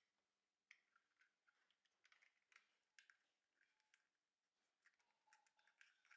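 Faint handling noise of a Vilia 35mm film camera being loaded: small irregular clicks and scrapes of the film leader and the camera's metal parts as the film is threaded onto the take-up spool.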